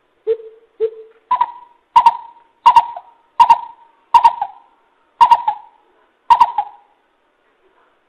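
Coucal calling: a series of hollow hooting notes, two lower ones first, then about seven higher ones spaced under a second apart, each trailing off slightly downward.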